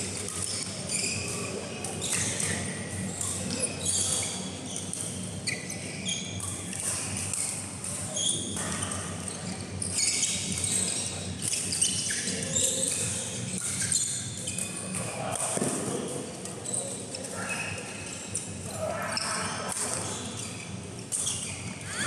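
Badminton being played on court mats: rackets striking the shuttlecock and sports shoes squeaking in short high chirps as players lunge and push off, with further play from neighbouring courts.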